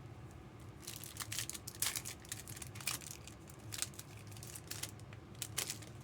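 Trading card pack wrappers and cards being handled and opened: a string of short, irregular crinkles and tearing rustles.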